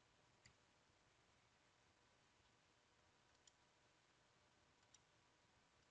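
Near silence: faint room tone with three faint clicks, about half a second, three and a half and five seconds in.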